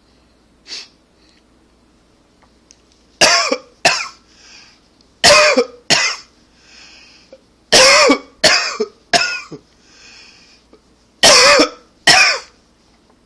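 A man coughing hard: about nine harsh coughs in four bouts of two or three, with a softer breath heard between bouts.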